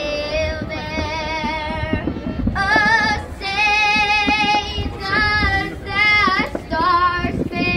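A female solo voice singing through a stadium loudspeaker, long held notes with vibrato, one phrase after another with short breaks.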